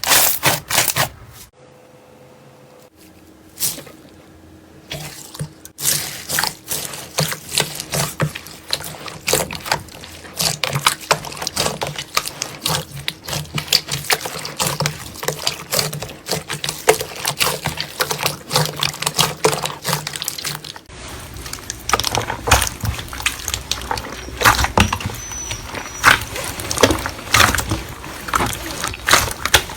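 Slime being squished and worked by hand: a dense run of wet, sticky clicks and pops. The sound changes abruptly several times as one slime clip gives way to the next.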